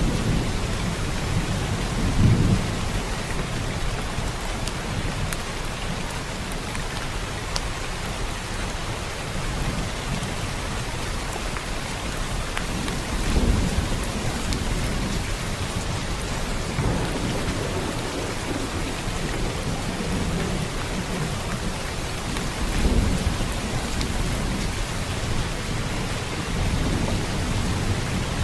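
Steady, even rain, with low rumbles of distant thunder swelling up three times: near the start, about halfway through and again after about three quarters.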